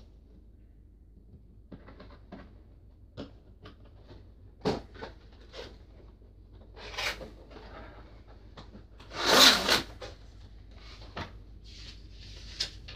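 Cardboard toy box being cut open with scissors and unpacked: scattered clicks, scrapes and rustles of cardboard and packaging, with a louder rustling scrape about nine and a half seconds in.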